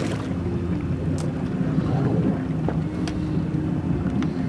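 Boat on open water: a steady low hum with wind and water noise, and a few faint ticks about a second in and about three seconds in.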